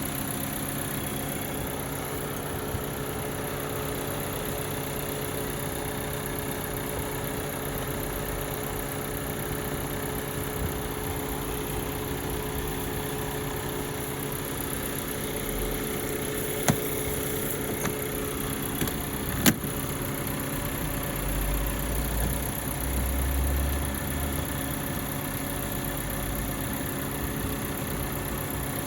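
2019 Audi A4 engine idling steadily. Two sharp clicks come a little past halfway, and a low rumble swells briefly a few seconds later.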